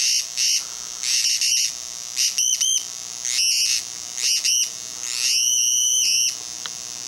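Drawdio pencil synthesizer sounding high-pitched electronic beeps as its circuit is closed through a baby's skin and opened again, played like a keyboard: about a dozen short notes at slightly shifting pitch, then one longer held tone about five seconds in.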